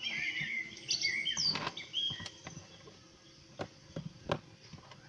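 Birdsong from a nature-sound recording, re-recorded off another phone's speaker: several quick chirps in the first two seconds or so, then a few sharp clicks near the end.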